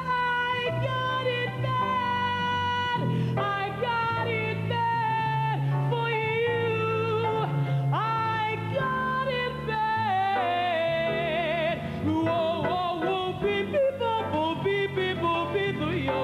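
Female jazz vocalist singing live without words, in wide leaps and long sliding notes, with vibrato on the held notes near the middle and at the end. Instrumental accompaniment holds low notes underneath.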